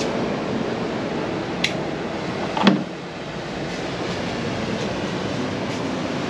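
Steady rushing background noise, with a sharp click about a second and a half in and a brief louder sound just after.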